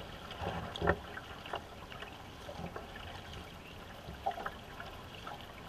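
Paddles dipping and pulling through the water beside a racing canoe, with water trickling off the blades and washing along the hull. A few short knocks sound irregularly, the loudest about a second in.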